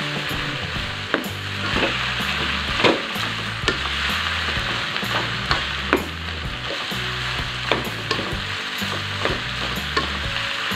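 Rice sizzling in hot oil in a non-stick wok while a spatula stirs and tosses it, with frequent scrapes and taps of the spatula against the pan at irregular intervals.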